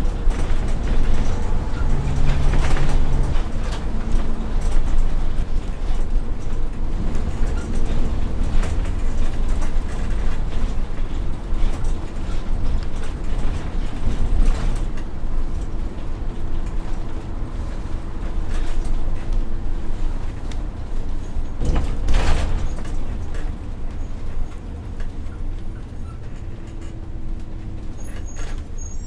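Interior ambience of a local bus: a steady low engine and road rumble with frequent rattles and knocks, and a short, loud burst of noise about three-quarters of the way through.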